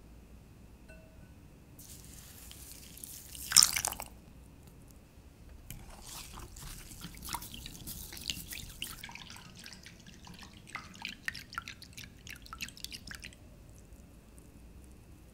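Warm milk poured into a glass bowl of yeast, sugar and salt, then a silicone whisk beating the mixture, with quick ticks and sloshes against the glass for several seconds.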